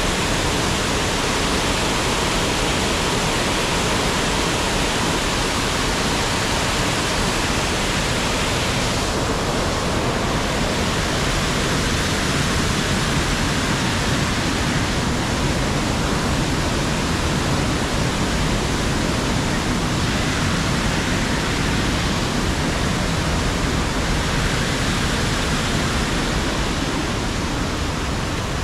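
Water pouring over a waterfall, a steady, unbroken rush.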